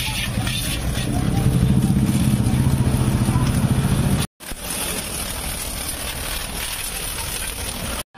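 Pressure-washer jet spraying water onto a motorcycle, a steady hiss of spray, with a low machine hum loudest in the first half. The sound breaks off briefly a little past four seconds in, then the spray hiss goes on.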